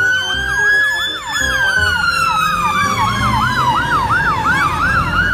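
Fire engine sirens sounding as the appliance pulls away on a call. A slow wail rises for about a second and then falls, and a fast yelp sweeps about three times a second over it. A low engine rumble runs underneath.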